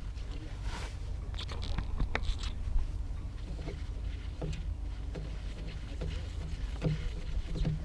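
Scrapes and light clicks of a screwdriver working loose the top oil level screw on the lower unit of a Tohatsu 6 hp outboard, over a steady low rumble. The clicks are busiest about two seconds in, then give way to soft scattered taps.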